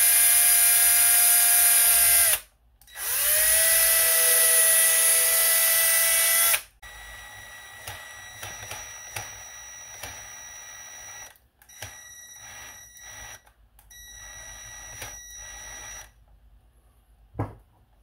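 Cordless drill driving a screw through the broken plastic mount of a robot vacuum's wheel module: two long runs, each rising in pitch as the motor spins up. From about seven seconds in, a quieter, higher whine follows in several shorter spells with brief stops, as the screw is driven further with a smaller tool.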